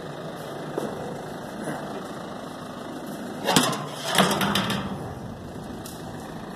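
Tractor engine running steadily at a low idle while it positions a grain auger. About three and a half seconds in come a few loud knocks and rattles.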